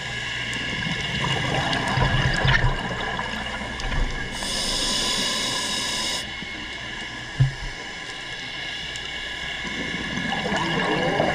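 Scuba breathing heard underwater. A regulator inhale hisses for about two seconds, starting about four seconds in, and exhaled bubbles gurgle near the start and again near the end, over a steady faint hum of tones.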